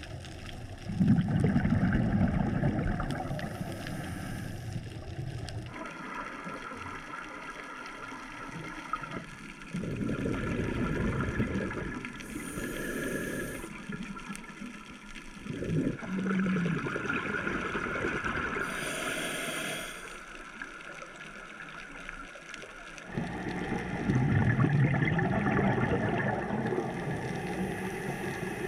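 Underwater sound of a scuba diver's exhaled bubbles rising from the regulator, gurgling in long bursts every several seconds, with quieter pauses between breaths.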